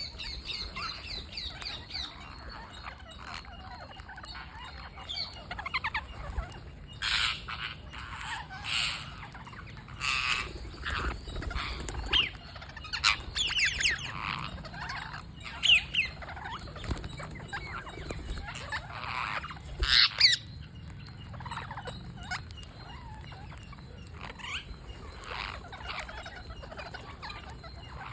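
A group of green parrots squawking and chirping while they feed, in short, irregular calls that thicken into a busy chatter in the middle stretch, with a couple of louder squawks.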